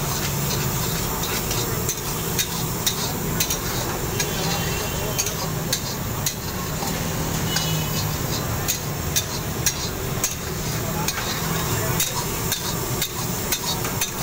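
Long metal ladle stirring and scraping mutton karahi in a black iron wok over a high flame, with frequent sharp clinks of metal on the pan. Underneath runs a steady sizzle of the karahi frying in its freshly added oil tadka.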